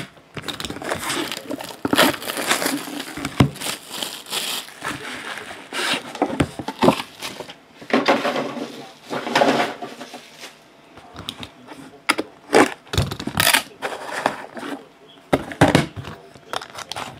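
Plastic shrink wrap being torn and crinkled off a trading card hobby box, followed by the handling of the box and its cardboard inner box, with irregular rustling and short knocks.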